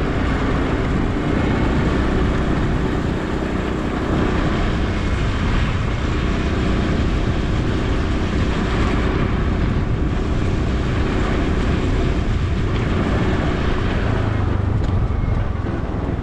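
Motorbike running steadily while being ridden, its engine rumble under a steady rush of wind noise.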